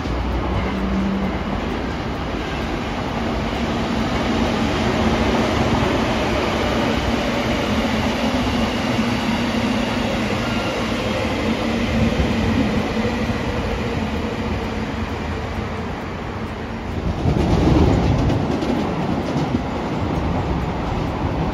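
A train running past, a steady loud rumble of wheels on rail that swells louder about seventeen seconds in.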